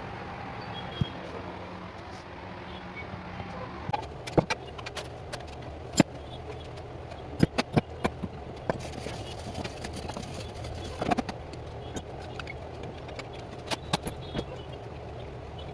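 Steady low mechanical hum with irregular sharp clicks and knocks scattered through it.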